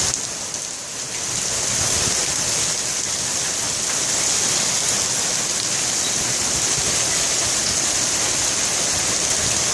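Heavy rain mixed with hail pouring down, a steady hiss that dips briefly about a second in.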